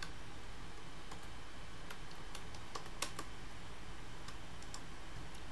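Computer keyboard keys tapped in a quick run of about eight clicks, two to three seconds in, as a number is typed, over a faint steady hum.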